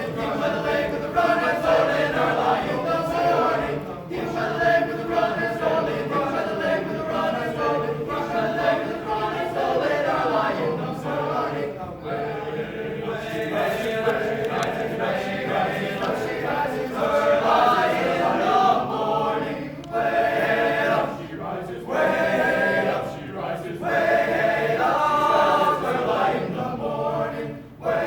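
A cappella choir singing in several voice parts, with no instruments.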